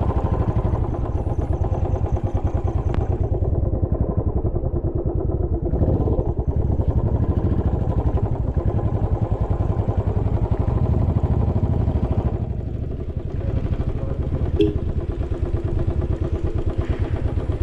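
Royal Enfield motorcycle engine running steadily while the bike is ridden, its exhaust pulsing evenly. The engine sound dips briefly about three-quarters of the way through, and a sharp click follows soon after.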